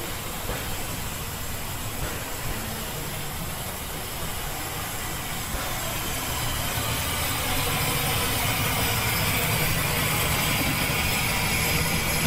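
Engines running steadily, with a hiss that grows louder about halfway through.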